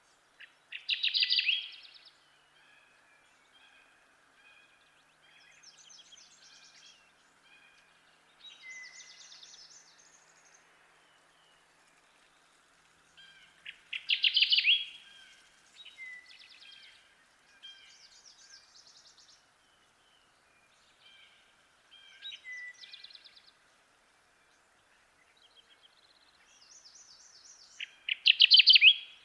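Kirtland's warbler singing its short, loud song three times, about every fourteen seconds, with fainter songs of other birds in between.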